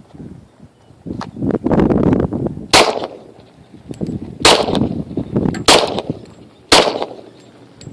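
Four pistol shots from a Glock 23 in .40 S&W, spaced about a second to a second and a half apart, each a sharp crack with a short echo trailing off.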